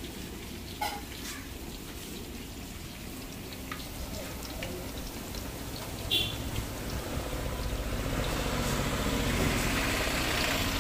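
Hot oil sizzling as snacks deep-fry in it, a steady crackling hiss with a couple of sharp clicks, growing louder over the last few seconds.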